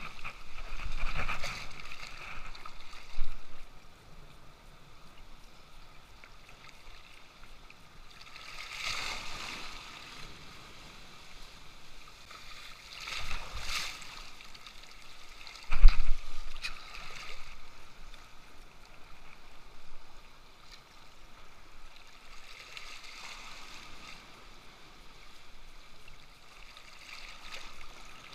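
Sea waves washing and surging against rock close by, in several swells a few seconds apart, with a sudden louder hit about sixteen seconds in.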